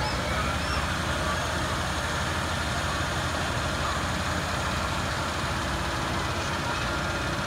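Aerial ladder fire truck's diesel engine running steadily at idle, a low, even throbbing rumble.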